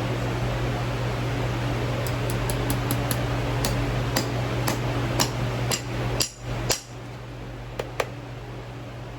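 A series of light, ringing metal-on-metal hammer taps that come faster and louder, over a steady low hum. The hum cuts out briefly about six seconds in, and two more taps follow near the end.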